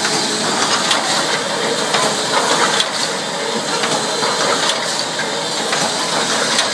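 Automatic wire mesh welding machine running: a steady mechanical clatter of scattered clicks and clanks over a constant noise.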